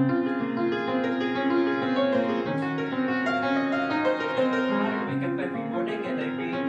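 Upright piano playing the introduction to a musical-theatre song: held chords under a steady, repeating pattern of notes, coming in suddenly out of silence.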